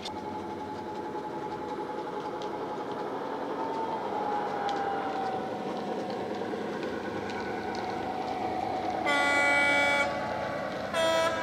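Model Class 59 locomotive's DCC sound decoder playing the diesel engine running, with a steady whine, then sounding the horn twice near the end: a long blast, then a short one on a higher note.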